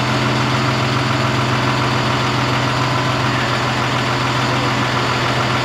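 Diesel engine of a DAF CF fire engine idling steadily, an even hum.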